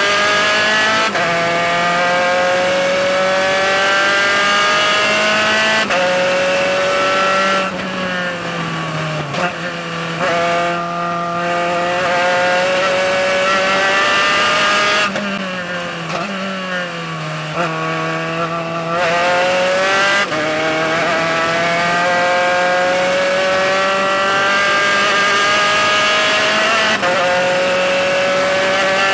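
Spec Racer Ford's four-cylinder engine at racing speed, heard from the open cockpit: the engine note rises under full throttle with sudden drops at upshifts. It falls away twice, around 8 and 15 seconds in, as the driver lifts and downshifts for corners, then climbs again.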